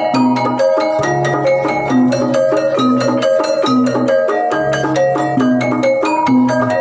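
Gamelan music: metallophones struck in a quick, busy repeating pattern of ringing notes over lower sustained tones.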